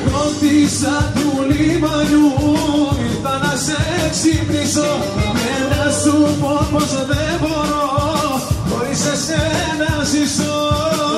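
Greek popular song playing: an instrumental passage between sung verses, a wavering melodic lead line over bass and drums with a steady beat.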